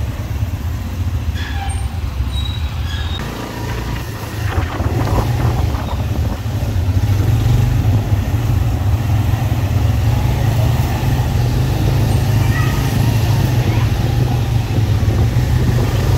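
Steady low rumble of motor vehicles running, as in road traffic, with faint voices in the background.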